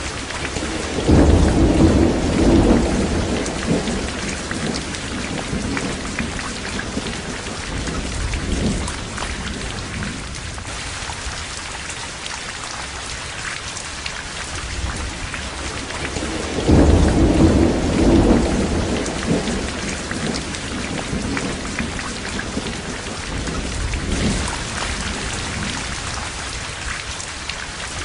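Steady hiss of rain with low rumbles of thunder, the two loudest about a second in and about seventeen seconds in, with weaker ones between.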